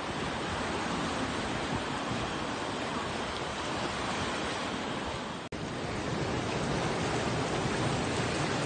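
Ocean surf washing over a rocky shore and into a seaside rock pool: a steady rush of breaking and draining water that cuts out for an instant about five and a half seconds in.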